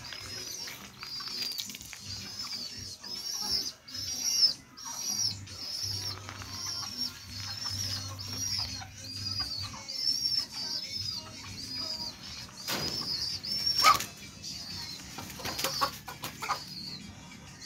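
A small bird's high chirp, repeated evenly about one and a half times a second, over soft background music with low bass notes. About thirteen and fourteen seconds in come two sharp clattering knocks, the loudest sounds here.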